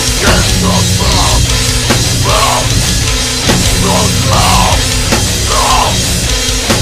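Metalcore studio recording: a loud, dense mix of heavily distorted guitars, bass and a drum kit.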